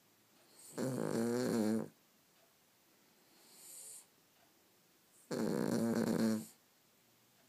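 Cavalier King Charles Spaniel snoring: two loud snores, each a little over a second long and about four and a half seconds apart, with a faint airy breath out between them.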